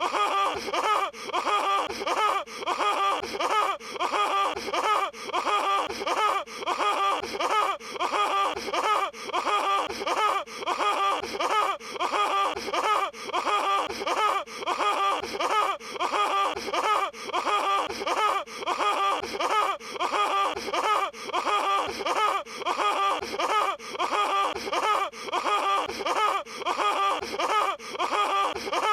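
Patrick Star's cartoon laugh from SpongeBob SquarePants, a short goofy laugh clip looped over and over, about once a second.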